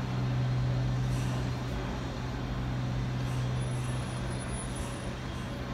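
Disney Resort Line monorail train standing at the platform, giving a steady low hum from its onboard equipment.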